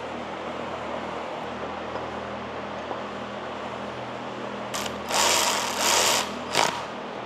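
A ratchet clicking in two short spells about five seconds in, driving in the water pump bolts on a GM Ecotec 2.0 LNF engine, over a steady low background hum.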